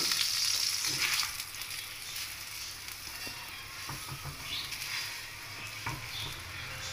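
A methi paratha sizzling in ghee on a hot tawa, louder for the first second and then a steady lower sizzle. A few light clicks of metal spatulas come in the second half as the paratha is lifted and turned.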